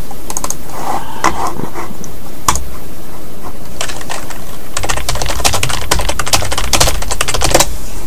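Typing on a computer keyboard: a few scattered keystrokes, then a fast run of key presses from about halfway through to near the end.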